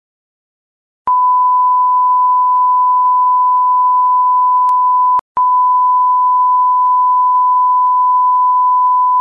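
Loud steady test-tone beep of a TV colour-bars test card, starting with a click about a second in. It drops out briefly with clicks about five seconds in, then resumes.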